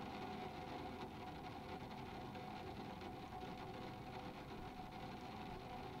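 Light rain falling on a skylight's glass pane: a steady, dense patter of small drops.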